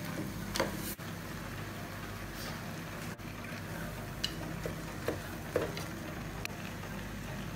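Wooden spatula stirring mutton pieces in an aluminium pressure cooker, with a handful of light knocks and scrapes against the pot over a steady low hiss of the cooking.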